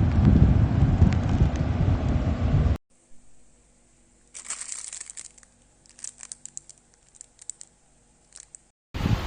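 A loud, even low rumble of wind or traffic noise on the microphone cuts off abruptly about three seconds in. After a short quiet gap comes a run of sharp crinkling and clicking from something being handled, which stops suddenly near the end.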